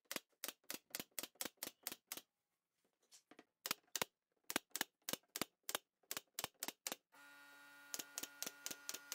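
Pneumatic brad nailer firing nails into pine pallet boards in quick runs of about four shots a second, with a short pause between runs. About seven seconds in, a steady hum starts under the shots.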